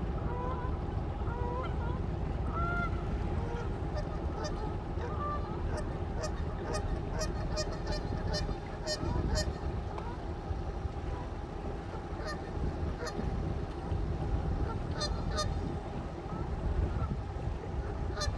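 Geese honking repeatedly in short calls and quick runs, over the steady low rumble of a boat on the river.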